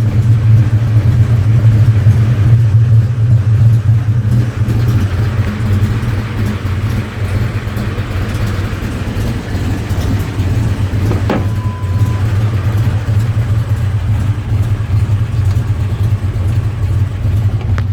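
Ford 4.6 L two-valve modular V8 running steadily at idle with a lopey ka-chunk, ka-chunk beat. A single click and a short beep come about eleven seconds in.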